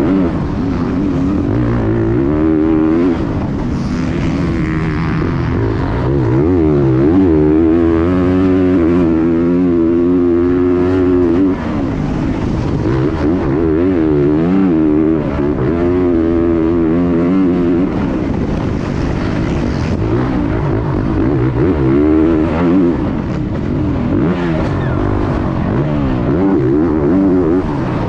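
Motocross bike engine heard from on board at race pace, its revs climbing and dropping again and again through the gears and over the track.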